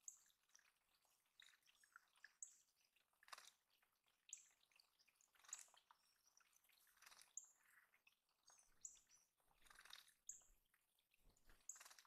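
Faint water dripping and splashing in a shallow rock puddle, with a small bird's short, high call notes repeating about every one and a half seconds.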